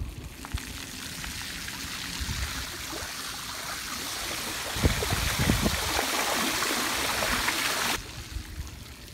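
Bicycle wheels riding through floodwater across a road, tyres spraying and splashing in a steady hiss, with a few low thumps about five seconds in. The splashing cuts off suddenly near the end as the bike rolls out onto wet asphalt.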